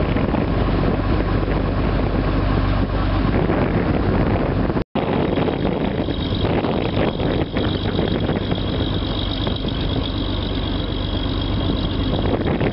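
Riverboat's engine running steadily under way, with wind noise on the microphone. The sound drops out completely for an instant about five seconds in.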